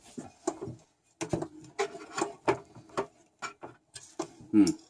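Drill boring holes in the metal of a barbecue, with scraping and irregular knocks of handling.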